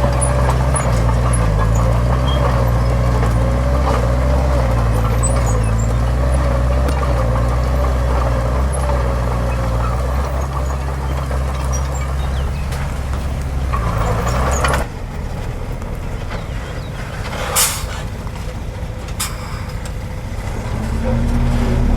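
Heavy diesel engine of earthmoving machinery running steadily, then dropping back suddenly about fifteen seconds in. A short sharp hiss comes a couple of seconds later, and the engine picks up again near the end.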